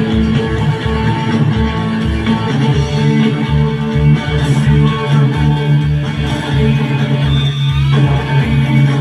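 Rock music with electric guitar over sustained bass notes and a steady kick-drum beat, about two beats a second, with no singing.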